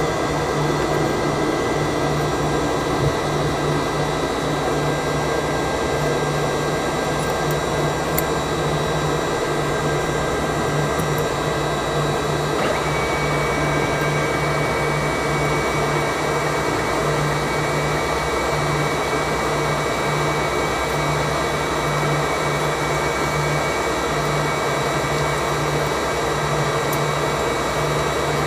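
Yak-40K's rear-mounted Ivchenko AI-25 jet engines at taxi power after landing, heard inside the cabin: steady engine noise with several high whining tones over a low, pulsing hum. About halfway through, a new whine tone comes in slightly higher.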